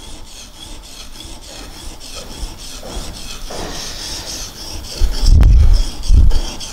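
Steel chisel being ground back and forth on the wet coarse side of a sharpening stone, a steady gritty scraping. This is the grinding stage, done until a burr forms on the back of the edge. Two low thumps about five and six seconds in.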